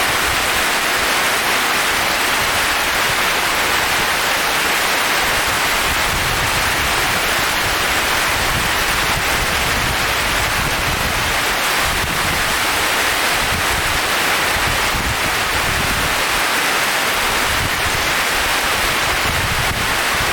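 Heavy rain pouring steadily in a strong wind, a dense, even hiss with an uneven low rumble beneath it.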